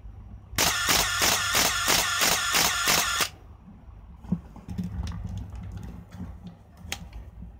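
Canon EOS-1 film SLR firing a continuous burst: about ten rapid shutter-and-mirror cycles with motor winding, roughly four a second, starting and stopping abruptly. Afterwards, a few faint clicks and knocks from the camera body being handled.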